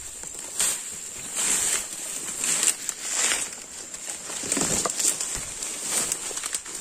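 Footsteps pushing through undergrowth, leaves and twigs rustling and crackling at an uneven walking pace, over a steady high-pitched hiss.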